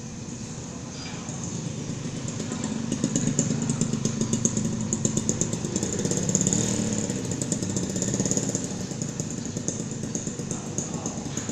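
Motorcycle engine passing close by, growing louder for a few seconds, shifting in pitch as it goes by, then fading.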